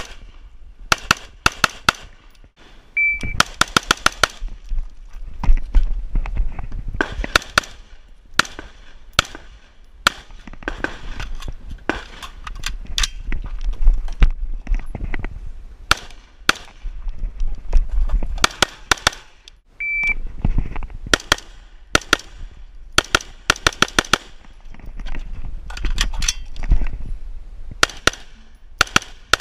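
Rapid strings of rifle shots from an AR-style carbine fired right at the microphone. Twice, a few seconds in and about two-thirds of the way through, a short electronic shot-timer beep starts a fast run of shots.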